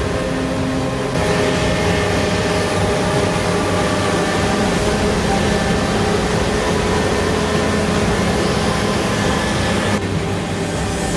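Claas Lexion 8800 combine harvester running steadily while harvesting, its engine and threshing machinery giving a continuous drone. The sound changes abruptly about a second in and again near the end.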